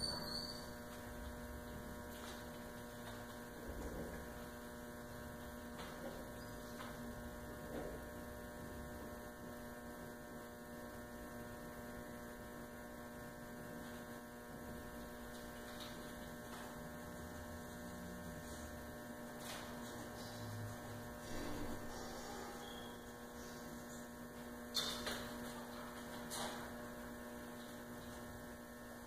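Steady electrical hum made of several constant tones, with a few faint clicks and knocks, the sharpest near the end.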